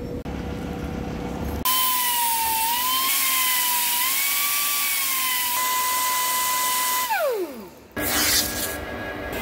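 Handheld pneumatic grinder spinning up against a threaded steel rod turning in the lathe: a high whine over loud air hiss that wavers in pitch while pressed on the work, then holds steady. About seven seconds in it is released and winds down with a falling whine, after a steady lathe hum at the start.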